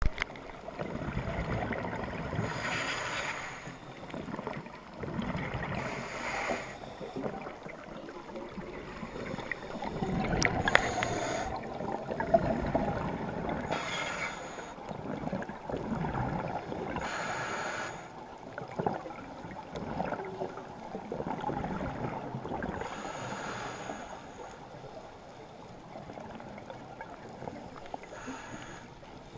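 Underwater scuba breathing heard through a camera housing: the diver's exhaled bubbles from the regulator rush past in short hissing bursts every three to five seconds, over a steady muffled rumble of water.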